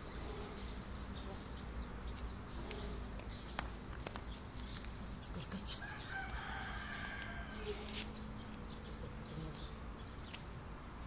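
A rooster crowing once, about six seconds in, a drawn-out call lasting about a second and a half, over a steady low background hum with a few scattered sharp clicks.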